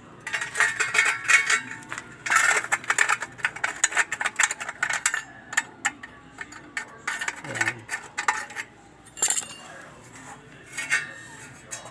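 Hammer striking a freshly cut square steel tube: runs of quick, sharp metallic clinks with short pauses between.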